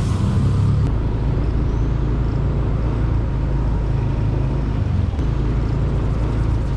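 Motorcycle engine running steadily as the bike rolls slowly, a low rumble with no change in pitch.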